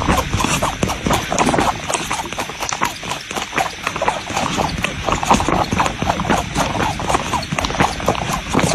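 A cat sucking milk from a small feeding bottle held in its paws: a steady run of quick suckling clicks, several a second.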